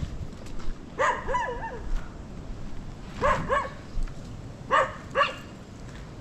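A dog barking in short barks: a quick run of a few about a second in, then two pairs of barks a couple of seconds apart.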